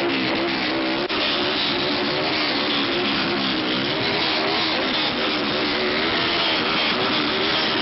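Several engines revving together in repeated throttle blips, their pitch rising and falling over and over, thick with exhaust noise, with a short break about a second in.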